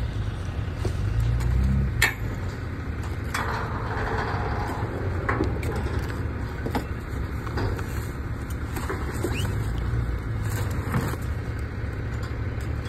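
A vehicle engine running steadily in the background, with scattered knocks and a rustling, scraping patch of debris and insulation being pulled off a trailer.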